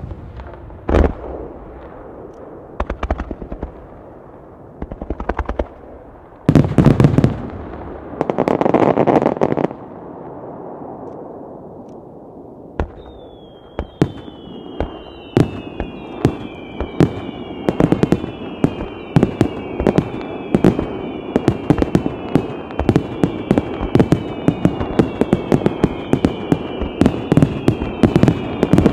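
Fireworks going off: separate booming bursts and a crackling hiss in the first half. From about halfway come dense rapid pops, overlaid with many whistles, each falling in pitch, one after another.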